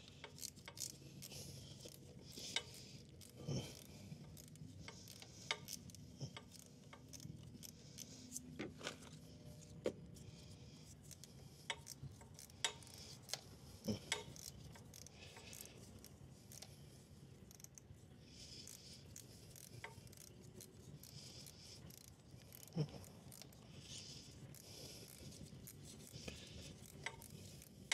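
Scattered small clicks, taps and light scrapes of hand tools and metal parts being handled, a dozen or so at uneven intervals with quiet between. The sharpest tap comes about 23 seconds in.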